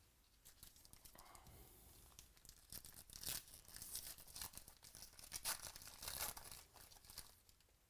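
Trading-card pack wrapper being torn open and crinkled: a run of sharp crackles, loudest in the middle and dying away near the end.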